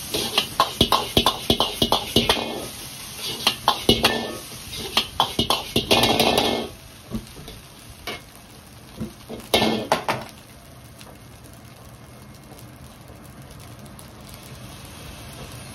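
Metal ladle clanging and scraping against an iron wok while stir-frying egg fried rice. The strikes come fast for about the first six seconds, with another short flurry around ten seconds in. After that only a faint steady background noise remains.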